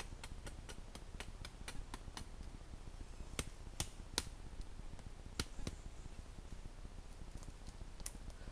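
Dry twigs and sticks cracking and snapping as they are broken and gathered from leaf litter: a quick run of light ticks, then several louder, sharper snaps in the middle and one near the end.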